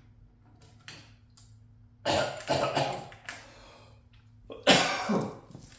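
A man coughing twice: a rough coughing fit about two seconds in and a second, sharper one near the end.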